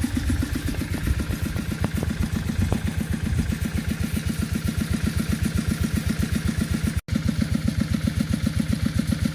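Engine-driven water pump running steadily as it drains a pond, an even rapid chugging of about nine beats a second. It cuts out for an instant about seven seconds in.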